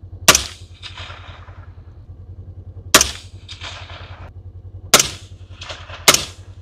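Four rifle shots from a 300 AAC Blackout rifle, unevenly spaced: the first near the start, then one about two and a half seconds later and two close together near the end. Each shot is followed by a fainter rolling echo, over the steady low hum of the side-by-side's engine idling.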